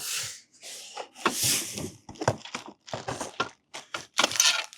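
Plastic packaging crinkling and rustling as kit parts are pulled from a box, with a scatter of small clicks and knocks from the hardware being handled.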